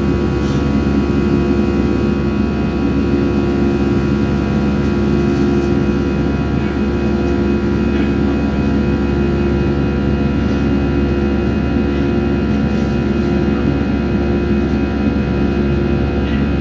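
Airliner jet engines running steadily, heard inside the passenger cabin: a constant drone with several steady hum tones.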